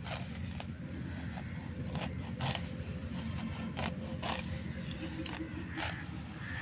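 Hand sickle slicing through clumps of green grass stalks: short, sharp rasping cuts at irregular intervals, roughly one every half second to second and a half.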